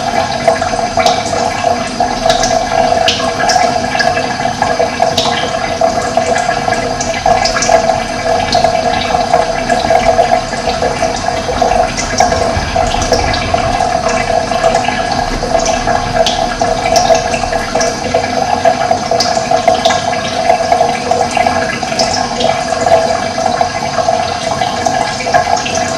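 Steady running water, a stream's continuous rushing and burbling, with many short, high bird chirps scattered over it.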